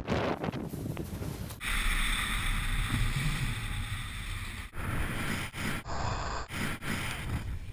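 Snowboard sliding and scraping over snow, with wind rushing over the camera's microphone. The sound changes abruptly several times where shots are cut together.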